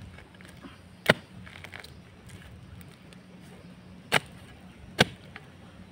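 A digging tool striking into the ground: four sharp hits at uneven spacing, over a faint steady low hum.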